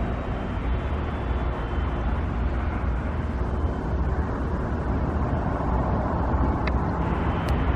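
Steady low rumble of motor vehicle traffic, with no distinct events.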